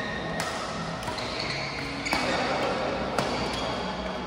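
Badminton doubles rally: rackets strike the shuttlecock about three times, sharp and a second or so apart, amid short high squeaks of court shoes on the floor.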